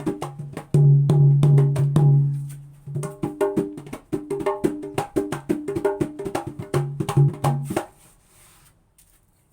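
Javanese kendang ciblon drum of plain jackfruit wood, played by hand in a fast pattern of sharp slaps mixed with ringing low bass strokes. The playing stops near the end.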